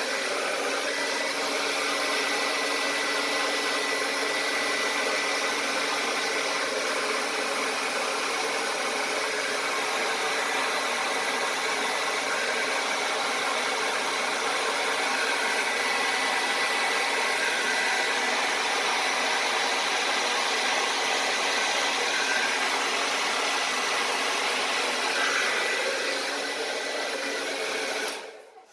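Handheld blow dryer running steadily, an airy rush with a thin high whine, blowing wet acrylic paint across a canvas; it switches off abruptly near the end.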